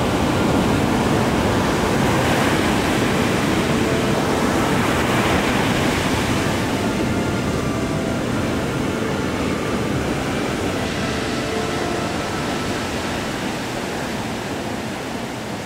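Ocean surf: a steady rush of breaking waves, slowly fading toward the end.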